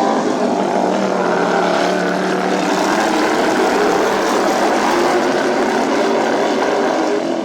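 Racing lawn mower engines running hard, a loud steady drone.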